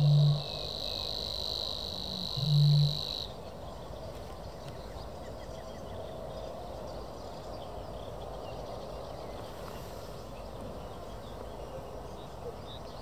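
Savi's warbler singing its reeling song, a steady high buzzing trill held on one pitch, which stops about three seconds in. Over it come two deep, low hoots about two and a half seconds apart, the loudest sounds.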